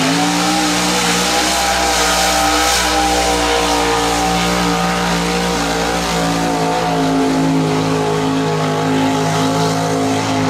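Mud-bog truck's engine at wide-open throttle, held at high steady revs with a slight dip about two-thirds through, as it churns through a 37-inch-deep mud pit.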